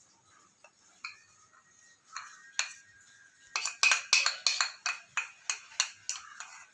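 A regular run of sharp, light ticks, about three a second, starting a few seconds in after a few scattered clicks.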